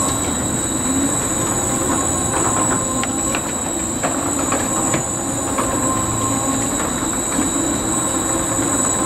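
Zamperla Air Raid spinning flat ride running: a loud steady mechanical rumble and rushing noise, with a few short clanks in the middle.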